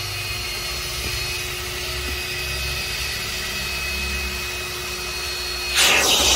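Upholstery extractor's vacuum motor running steadily with a thin whine, drawing through a clear upholstery tool pressed on a cloth car seat. Near the end a much louder rushing hiss starts suddenly.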